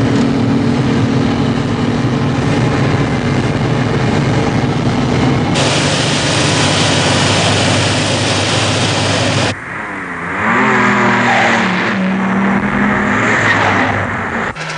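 Car engine running steadily; it changes abruptly about nine and a half seconds in, then revs up and down before settling again.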